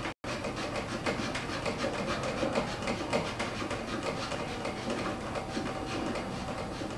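Plastic filler cap of a laser unit's water tank being twisted open by hand: a steady scratchy rubbing with many fine clicks, over a faint low hum.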